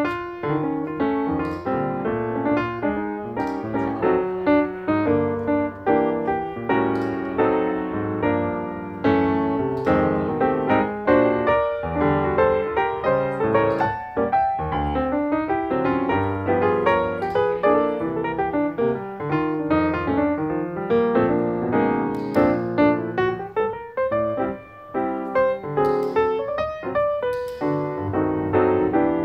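Background piano music, a steady run of notes that goes on without a break.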